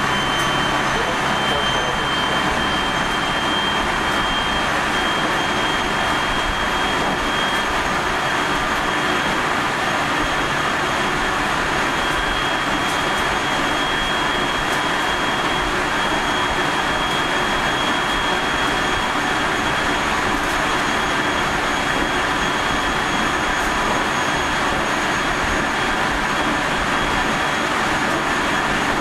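Running noise inside a JR Central 373 series electric multiple unit motor car (KuMoHa 373-11) travelling at a steady speed: a constant rumble of wheels on rail with a high, steady whine over it. This car is known for an unusually strong abnormal running noise.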